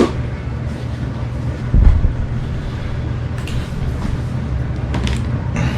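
A motorcycle helmet being pulled on and handled, with one loud dull thump about two seconds in and a few faint knocks, over a steady low rumble.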